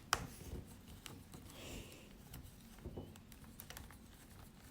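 Faint scattered clicks and light taps of small parts and a tool being handled inside an opened laptop, with one sharper click right at the start.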